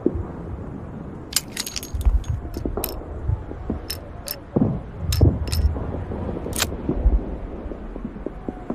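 Smith & Wesson Schofield revolver being handled: a quick cluster of sharp metallic clicks about a second and a half in, then single clicks spaced out over the next few seconds, over low handling thumps.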